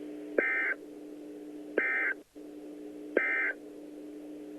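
Emergency Alert System end-of-message code: three short, identical bursts of digital data screech, each about a third of a second long and about 1.4 s apart, over a steady low hum. The bursts signal the end of the alert message.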